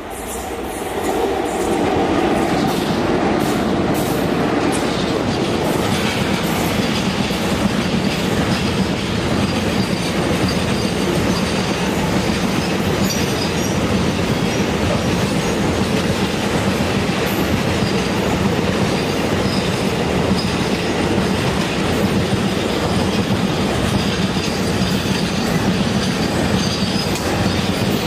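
Twin WAG-7 electric locomotives passing close by, loud from about a second in. A long train of container wagons follows, rolling past with a steady clickety-clack of wheels on the rails and a high wheel squeal at times.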